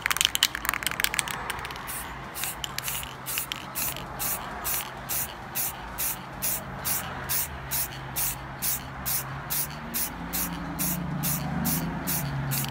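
Aerosol can of Krylon Triple Thick Crystal Clear Glaze spraying in quick repeated pulses, about two or three a second, after a brief rattling at the start.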